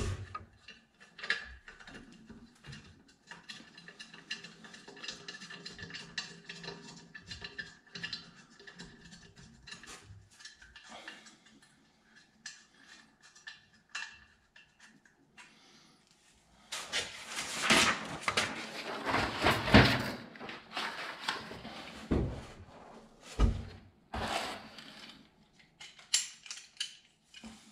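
Handling noise from the plastic-and-chrome mounting block of a Grohe Euphoria SmartControl shower system: small clicks and rattles as its fittings are worked back into place, then louder clattering and a few sharp knocks past the middle as the block is handled and set down on the counter.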